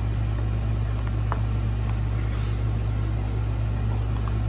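A steady low mechanical hum, with a few faint clicks and rustles from handling a plastic ring binder and its metal rings.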